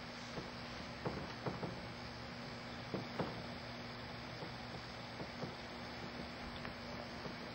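Dry-erase marker on a whiteboard: a few faint short taps and scratches in the first three seconds or so as a word is written, over a steady low electrical hum.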